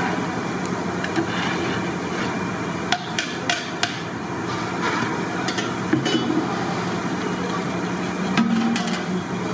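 Metal strainer ladle clinking and scraping against the sides of a large metal cooking pot as cooked rice is turned over, a scattering of sharp knocks over a steady low hum.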